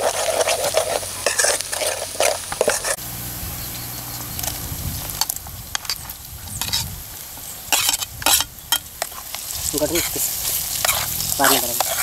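Chopped onions sizzling in oil in an aluminium pot while a steel ladle stirs and scrapes against the pot. Partway through, pieces of raw partridge meat are tipped in from a steel plate with a clatter and stirred into the frying onions.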